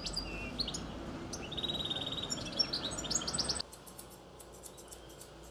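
Birds chirping, with short upward calls and a rapid trill, over steady street noise. About three and a half seconds in this cuts off to quick, light snips of barber's scissors, about four or five a second.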